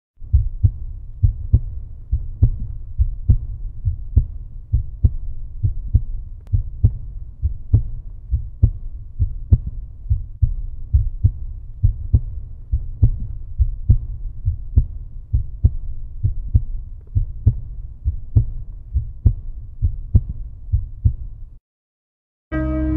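Heartbeat sound effect: a slow, steady double thump, lub-dub, repeating a little less than once a second. It stops suddenly near the end, and after a moment of silence music begins.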